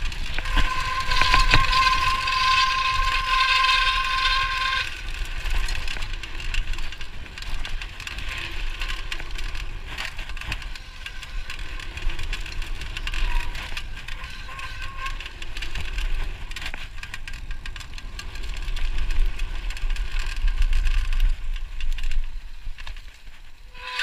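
Retro Cannondale Super V SL full-suspension mountain bike ridden fast down a dirt downhill trail: rattling and knocking over the bumps, with wind rumble on the handlebar microphone. Its brakes give a steady high squeal for the first few seconds and briefly again midway.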